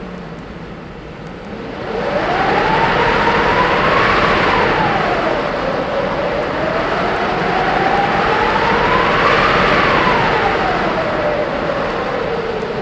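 Winter wind blowing in gusts, swelling about two seconds in, with a whistling tone that rises and falls twice over a steady rush.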